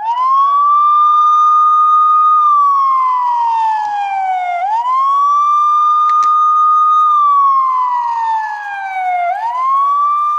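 Electronic police siren from the built-in sound module of a 1:18 scale model car. It plays a wail: the pitch rises quickly, holds high for a couple of seconds, then slides slowly down, repeating about every four and a half seconds for two full cycles before rising a third time.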